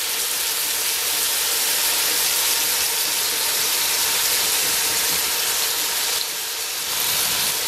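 Ground beef sizzling as it browns in a cast iron Dutch oven over a propane burner: a steady hiss. The fat is starting to render.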